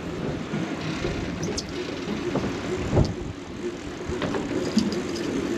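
A motorboat's engine running under way, a steady low drone mixed with wind and water rushing past the hull, with a sharp knock about three seconds in.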